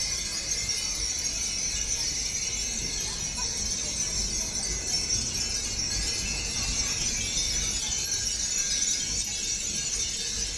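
Hundreds of hanging furin wind chimes tinkling together in the breeze, a dense, unbroken high jingling with no single strike standing out.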